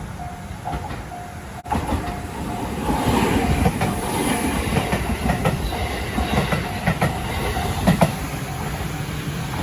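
Level-crossing warning bell ringing in a steady on-off beat about twice a second. From about two seconds in, a train passes over the crossing, its rumble and repeated wheel clicks rising over the bell.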